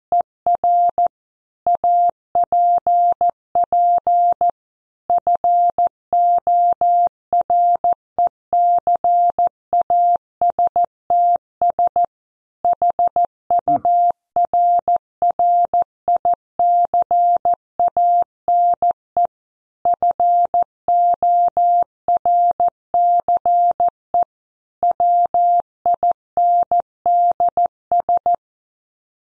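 Computer-generated Morse code practice tone at 14 words per minute: a single-pitched beep keyed into dots and dashes, with short pauses between words, spelling out a news headline (here 'BBC Weather app forecast hurricane force winds'). It stops about a second before the end.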